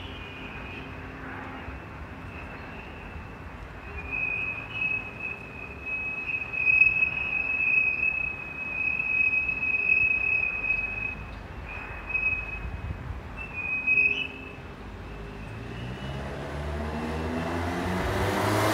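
Wind whistling on an aluminium composite panel facade: one high, steady whistle that swells and fades with the gusts, strongest from about four seconds in to about fourteen, over a low rumble. Near the end a passing vehicle grows louder.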